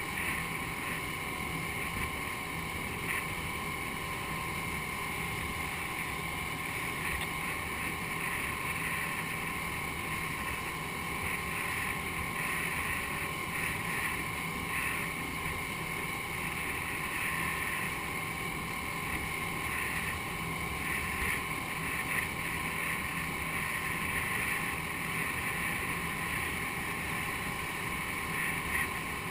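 Outboard motor of a rigid inflatable boat running steadily, with wind and water noise.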